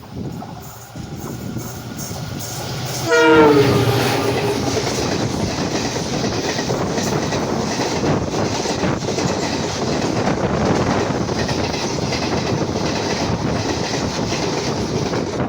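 Jan Shatabdi Express passing close by. Its noise builds over about three seconds, then the locomotive's air horn sounds once, about three seconds in, dropping slightly in pitch as it goes by. The coaches then rush past with a steady loud clatter of wheels on the rails.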